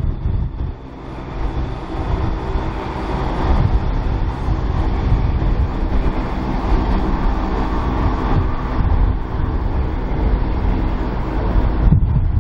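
East Midlands Railway Class 170 Turbostar diesel multiple unit pulling away from the platform, its diesel engines running steadily under power with wheel and rail noise.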